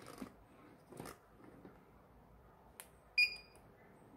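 A few light clicks of alligator clips being handled on car battery terminals, then, about three seconds in, one short electronic beep from the spot-welder circuit board's buzzer as it receives power.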